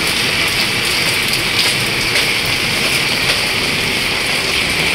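Heavy rain falling steadily, pattering on a plastic sheet roof overhead.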